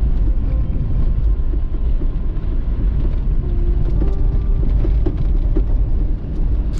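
Steady low rumble of a 4x4 driving over a loose gravel track, heard from inside the cabin: engine and tyre noise on the stones.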